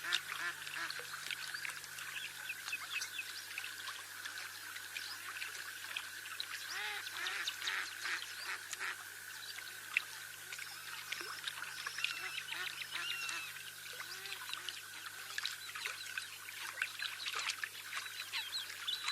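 Waterfowl calling: many short calls overlapping one another, over a steady background whine.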